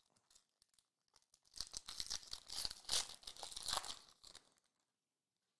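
Foil wrapper of a 2021-22 Recon basketball card pack being torn open and crinkled, a dense crackling that starts about a second and a half in and stops after about three seconds.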